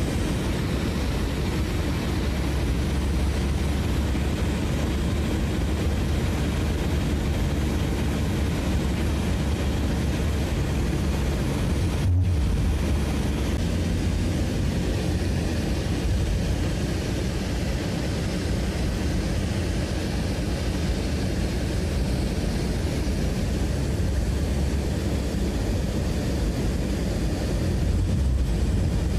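Steady low rumble of a moving vehicle, broken by a brief dropout about twelve seconds in.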